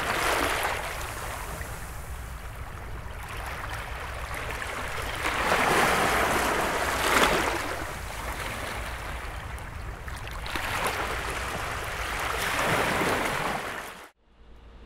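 Sea waves washing, a hissing wash that swells and eases in surges a few seconds apart, over a faint low rumble. It cuts off suddenly near the end.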